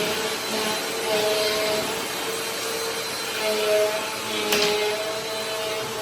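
Vacuum cleaner running, its hum stepping up and down in pitch as the suction changes, with one sharp click about three-quarters of the way through.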